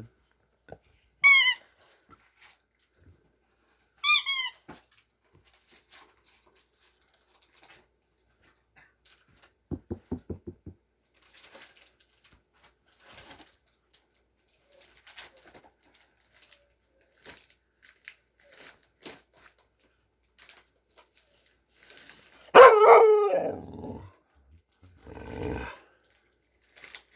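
Dogs barking and vocalizing during play: two short high-pitched yelps in the first few seconds, a brief rapid rattle around ten seconds in, and a long, loud bending bark-howl near the end, the loudest sound, followed by a shorter one.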